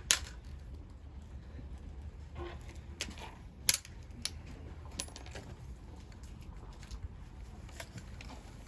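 A few sharp, light metallic clicks and clinks, spaced irregularly and loudest a little past halfway through, over a steady low rumble of wind.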